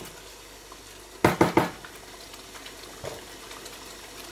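A wooden spatula knocks sharply three or four times in quick succession against a non-stick karahi about a second in, with one lighter knock a little later, over the low steady bubbling of the simmering curry.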